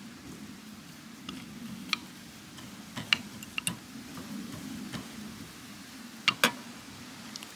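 Metal fork clicking and scraping against a terracotta clay bowl while mashing crumbly food. There are scattered sharp clicks: one about two seconds in, a quick run of three or four around three seconds in, and two close together near the end.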